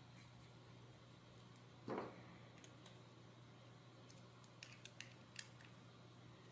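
Faint small-parts handling: a soft knock about two seconds in, then a handful of light metallic ticks as a small hex screwdriver engages and turns a screw in a plastic gear motor's aluminium mounting block.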